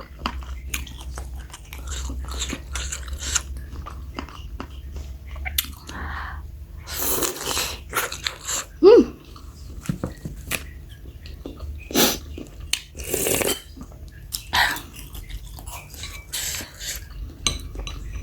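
Close-up mouth sounds of eating bakso meatball soup: steady chewing and biting with wet smacks and clicks, broken by a few longer, louder noisy bursts about seven and thirteen seconds in.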